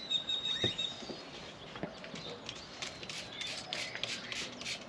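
Trigger spray bottle being pumped repeatedly: a quick run of short hissing squirts, about four a second, starting about three seconds in.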